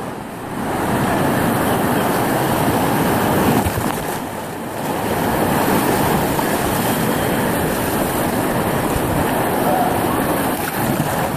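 River rapids rushing and churning around the tubes, a loud, steady wash of whitewater. It dips briefly near the start and again about four seconds in.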